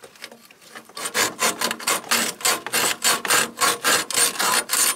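Fast, even rasping strokes, about three or four a second, starting about a second in after a short lull.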